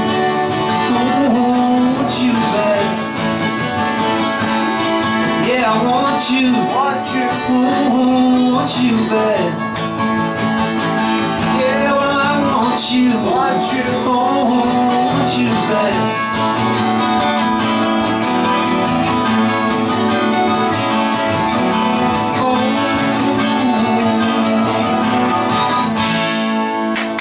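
Two acoustic guitars, a six-string and a twelve-string, strummed and picked together in an instrumental passage of a country-rock song, with the music stopping just before the end.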